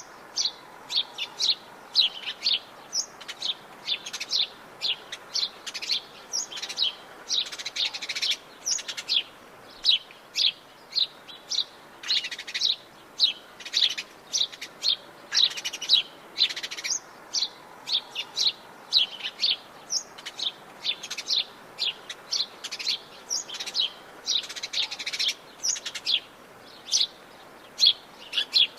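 Several birds singing at once in a tropical forest, a dense run of short high chirps and quick trills with barely a pause, over a faint steady hiss.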